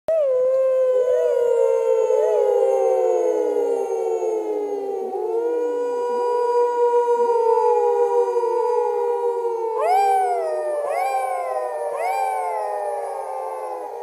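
Werewolf howling sound effect: a chorus of overlapping, wolf-like long howls, each sliding downward in pitch. From about ten seconds in, a quicker run of howls that swoop sharply up and then fall, roughly one a second.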